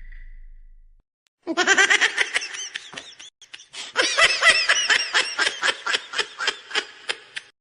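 Laughing meme sound effect: a person laughing hard in rapid, repeated bursts, starting about a second and a half in, with a short break around three seconds. A fading musical tone dies away just before it.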